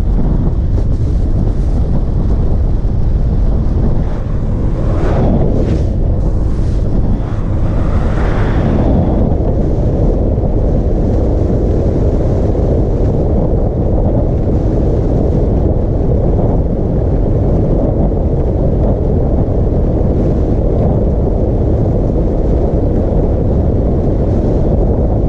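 Heavy wind buffeting the microphone of a camera on a moving ride, a steady rushing roar. It swells briefly about five and eight seconds in.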